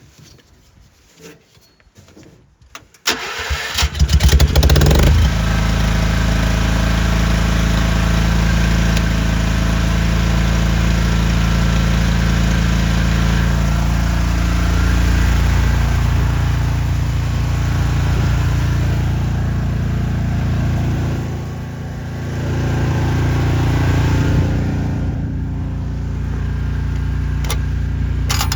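Engine-driven welder's engine being cranked about three seconds in, catching after a couple of seconds and then running steadily, with a brief dip in speed about three-quarters of the way through before it picks back up.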